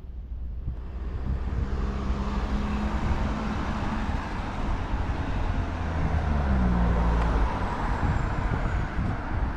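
Street traffic: a motor vehicle's engine drones past close by over the hiss of tyres on the road, its pitch dropping about six seconds in before it fades.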